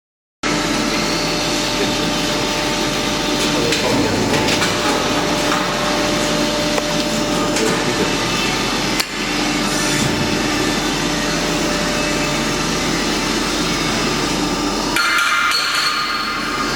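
Kocevar resistance welding machine serially spot-welding a stainless steel sink into a countertop: a loud, steady, dense clatter over a low electrical hum. It starts about half a second in, gives one sharp click about nine seconds in, and turns brighter and hissier from about fifteen seconds.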